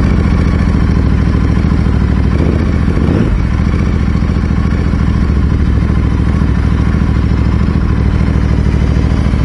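Royal Enfield Continental GT 650's parallel-twin engine idling steadily through an aftermarket exhaust.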